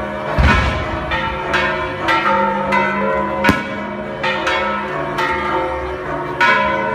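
Church tower bells ringing, struck about twice a second with each stroke ringing on under the next. A deep boom comes about half a second in, and a sharp crack about three and a half seconds in.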